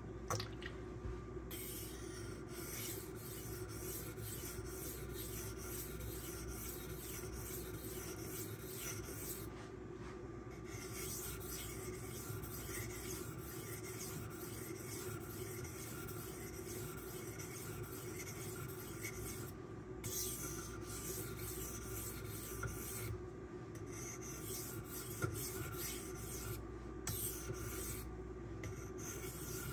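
Magnacut steel knife blade being stroked back and forth across a 1000-grit silicon carbide whetstone: repeated rasping scrapes with short pauses every few seconds.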